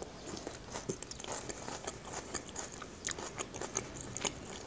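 Close-up chewing of a mouthful of Caesar salad, with many small crisp crunches as the lettuce is bitten down.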